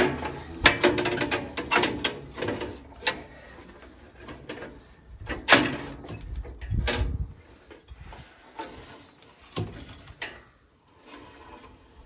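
Metal clicks, clanks and rattles of a steel bandsaw blade being worked by hand onto the blade wheels and into the guides of a sawmill. The loudest knocks come about five and a half and seven seconds in, and the handling grows quieter after that.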